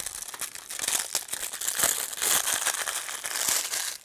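Plastic packaging crinkling and rustling as it is handled and pulled open, with dense small crackles throughout.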